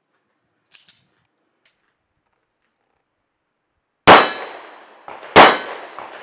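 Two pistol shots from a Sig P365 XL, about a second and a half apart, each with a loud clang from the steel targets and a long ringing decay. A few faint clicks from handling the pistol come first.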